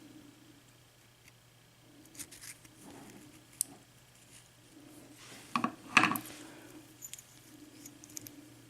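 Small metal clicks and rubbing as a lock core and its key are handled, with two louder clacks about five and a half and six seconds in.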